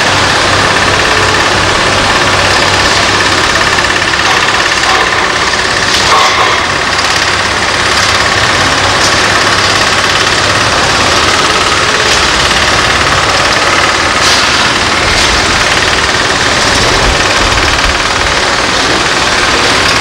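Diesel construction machinery running steadily with a dense, continuous engine noise, and a couple of sharp knocks, one about a third of the way in and one about two-thirds of the way in.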